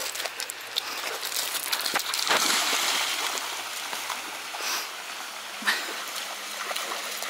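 A dog splashing as it runs and wades through a shallow river over a pebble bed, loudest a couple of seconds in, with the river flowing underneath.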